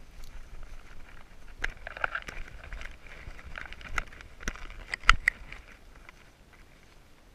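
Blueberry bush leaves and branches rustling and brushing against a dog's harness-mounted GoPro as the dog pushes through the bushes, with scattered sharp clicks and knocks. The clicks are loudest about five seconds in, and the sound dies down near the end.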